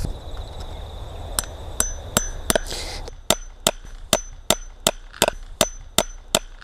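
Hammer driving fence staples through an insulator's staple guides into a wooden post. It is a steady run of about fourteen sharp strikes, roughly three a second, starting a little over a second in.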